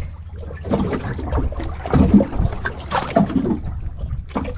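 Sea water sloshing and trickling against a small outrigger boat's hull, with irregular splashes and knocks, over a low steady rumble.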